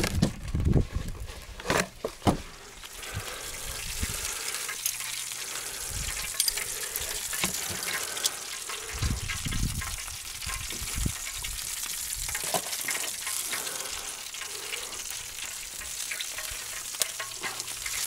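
Freshly hot-smoked meat sizzling on the wire grate of a wood-fired smokehouse, a steady crackling hiss with small pops. A few wooden knocks in the first couple of seconds as the smokehouse lid is handled.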